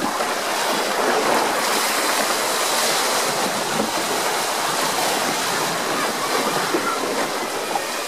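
Water flowing and splashing in a log flume trough around the boat, heard from on board.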